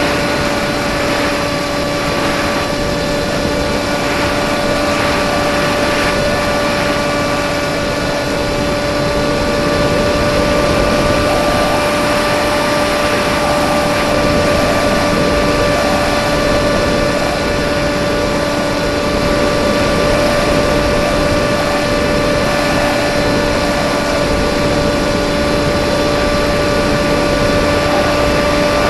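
Radio-controlled model plane's motor and propeller running at steady cruise throttle, heard from the aircraft itself: one constant-pitch whine with overtones over a loud rush of airflow on the microphone.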